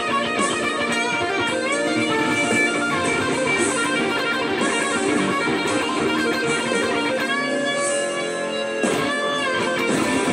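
Telecaster-style electric guitar playing an improvised lead solo, a run of quick notes. About seven seconds in comes a long held high note, then a note bent up and back down.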